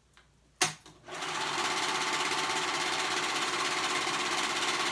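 A sharp click about half a second in. From about a second in, a four-thread serger (overlocker) runs steadily at speed, stitching and trimming the raw edge of a knit cuff into a seam.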